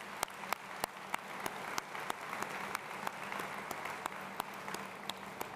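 Audience applauding, with one person's sharp claps close to the microphone at about three a second. The applause swells and then dies away near the end.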